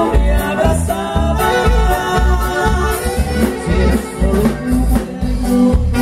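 Live Latin dance band playing with a singer, over a steady bass and drum beat about twice a second.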